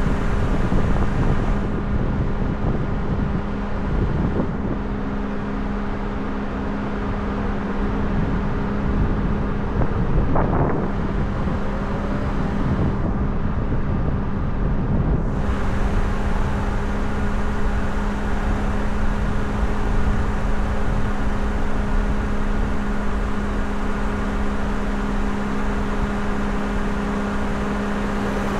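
Car driving steadily on the road, heard from a camera mounted on the edge of the hood: an even road and engine rumble with a constant low hum, the wind on the microphone held down by wind-reduction processing.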